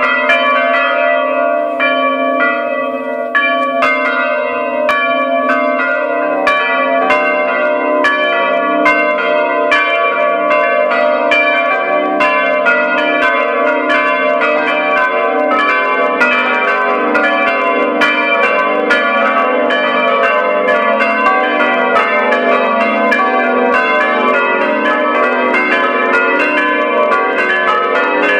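Five church bells rung together in full peal (plenum), their strikes overlapping densely in a continuous clangour. A deeper bell tone joins about six seconds in.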